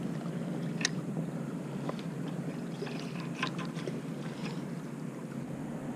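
Scattered light clicks and taps of a fishing rod and spinning reel being handled, over a steady low rumble.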